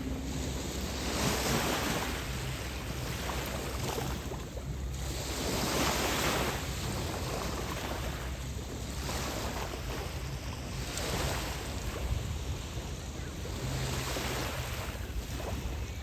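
Waves washing onto the beach, the surf swelling and fading every couple of seconds, with a steady low rumble of wind on the microphone underneath.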